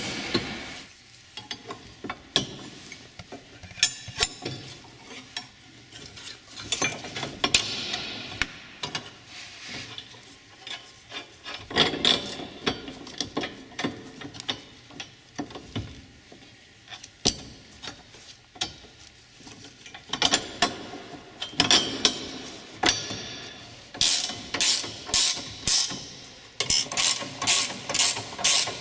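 Ratchet wrench clicking as the tow-hitch mounting bolts are run in and tightened, with clinks and rubs of metal bolts and shims being handled. Near the end the ratchet strokes come in a quick regular run of about two to three a second.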